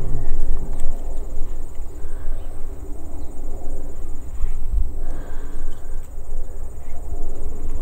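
Irregular low rumble of wind on the microphone, with a fast, even high-pitched insect chirping faintly behind it.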